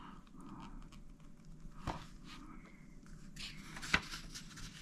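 Quiet room tone with faint handling noise and two short clicks, about two seconds in and about four seconds in, the second one sharper and louder.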